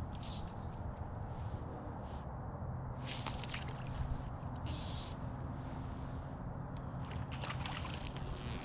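Steady rush of moving stream water, with a few short sloshes and splashes scattered through it.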